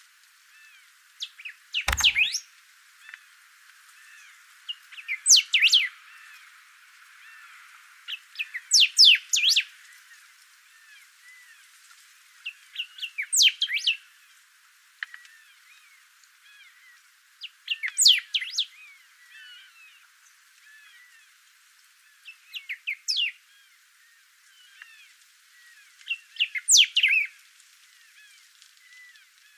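A bico-grosso saltator singing, about seven short loud phrases of quick sweeping notes, one every four seconds or so, over faint chirping from other birds. A low thump comes with the first phrase.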